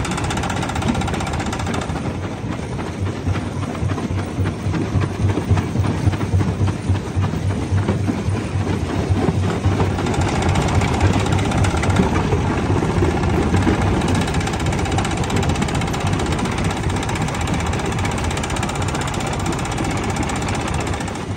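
Jaw rock crusher running and crushing stones: a steady low hum under a dense, irregular stream of knocks and cracks.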